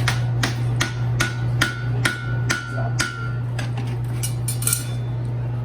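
Hammer blows on hot iron at the anvil during a forge weld of the wrought iron and steel stake anvil. About eight ringing strikes come, roughly two to three a second, then a few lighter taps about four seconds in, over a steady low hum.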